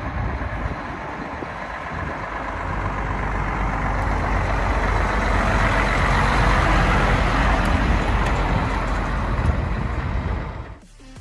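Mercedes-Benz Axor 3240 truck's diesel engine, just fitted with new cylinders and pistons, pulling the truck past at low speed. It grows louder as the truck comes close, is loudest a little past halfway, then eases as it pulls away.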